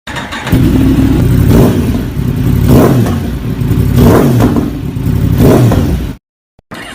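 Yamaha YZF-R1 inline-four with an aftermarket exhaust, revved in about five blips that each rise and fall, then cut off suddenly near the end.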